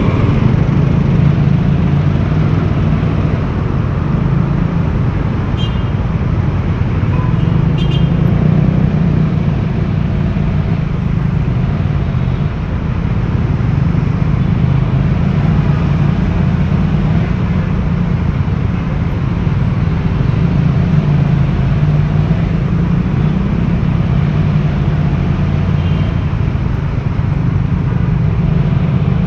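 Yamaha YZF-R1's 1,000 cc engine on its stock exhaust, running under way, its note rising and falling gently with the throttle over a steady rush of wind and road noise.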